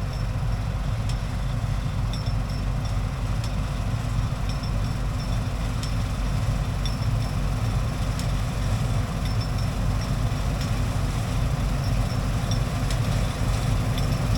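Combine harvester running steadily while cutting wheat, a low engine drone. Light, irregular ticks of a rattle from the header sound over it, which the operator guesses is a loose sickle section.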